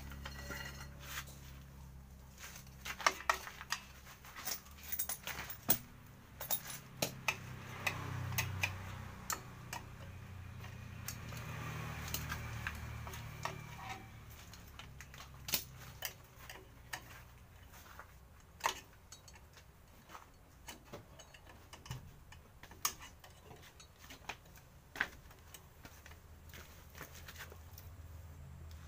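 Small metallic clicks, taps and scrapes of a screwdriver working on a rear drum brake assembly, its shoes and wheel cylinder, irregular and scattered, over a steady low hum.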